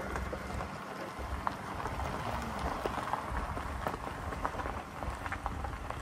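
Footsteps crunching through dry grass and brush, with scattered small snaps and rustles.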